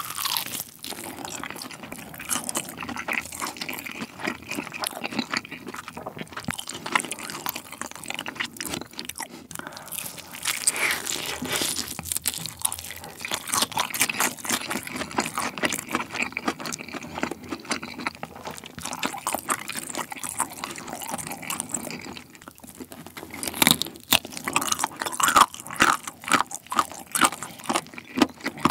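Close-miked crunching and chewing of galbi-sauced fried chicken: the crisp fried coating crackles with each bite, and the crunches grow louder near the end.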